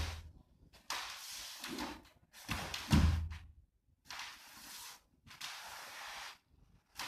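Barefoot karate kata movement on a wooden floor: the gi swishing in repeated bursts, and bare feet thudding and stepping on the boards, the heaviest thud about three seconds in.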